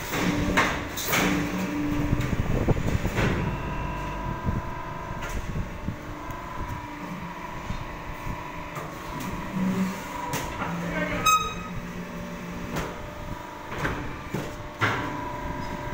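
Fly ash brick making machine running: a steady machine hum with scattered metal clanks and knocks as the mould lifts and a pallet of freshly pressed bricks slides out onto the roller conveyor. A single ringing metal clang comes about two-thirds of the way through.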